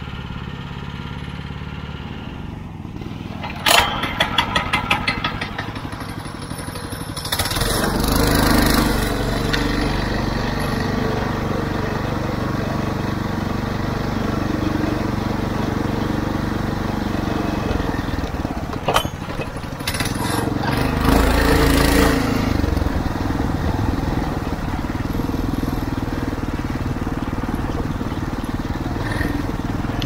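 Small motor vehicle engine running steadily under strong, gusty wind on the microphone, with a quick run of clicks about four seconds in.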